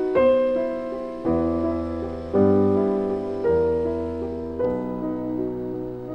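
Background music: slow piano playing sustained chords, with deep bass notes in the middle.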